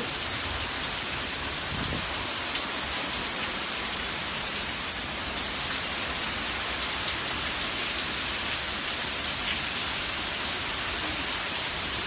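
Torrential wind-driven rain in a severe storm: a steady, unbroken hiss of a downpour.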